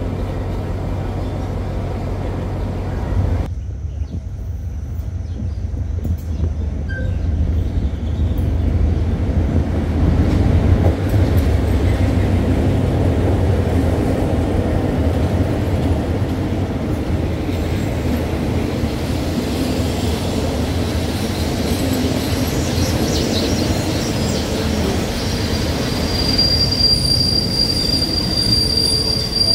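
Diesel-hauled passenger train moving past the platform: a steady low engine rumble and rolling wheels, with a high, steady wheel squeal coming in near the end.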